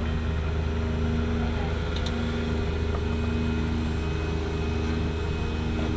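Jeep engine running steadily at low revs, an even low hum with no revving, as the Jeep crawls or waits on the rock.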